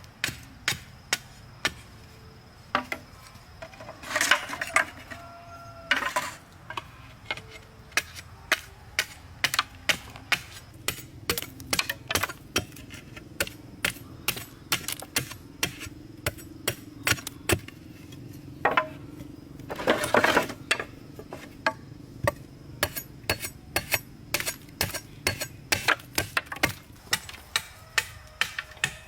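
Hand tool striking repeatedly, about two sharp knocks a second, with two longer rustling stretches, one about four seconds in and one about twenty seconds in.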